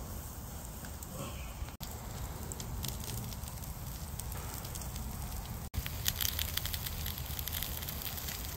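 Wood campfire crackling, with sausages sizzling in a frying pan over it. The sound breaks off sharply twice, about two and six seconds in, and the crackle is busier and louder after the second break.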